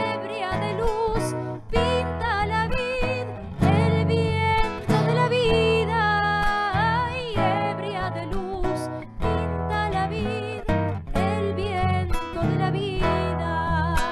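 Live Argentine folk music: a classical guitar plucked and strummed, with a woman's singing voice over it.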